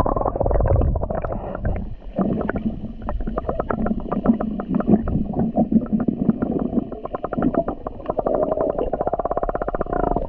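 Underwater sound picked up by a submerged camera: muffled water movement and gurgling, with a dense crackle of clicks that quickens in the last few seconds. Air bubbles are rising from a waterproof phone bag held under the water, a sign that it is leaking.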